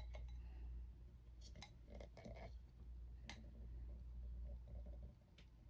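A handful of faint clicks and light taps of a plastic syringe against a small glass cup as dyed glycerin is drawn up into it, over a low steady hum.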